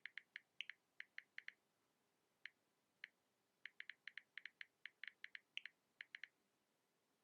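Smartphone on-screen keyboard key-press clicks: quick runs of light, high clicks as if typing a message, with a couple of single taps in between, stopping about a second before the end.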